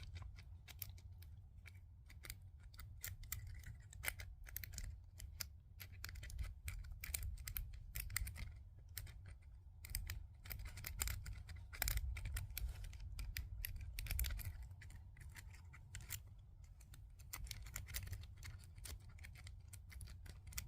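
A single wave rake pick working the pins of a commercial deadbolt cylinder under a tension wrench. Irregular small metallic clicks and scrapes come throughout, some in quick runs, as the pins are raked toward setting.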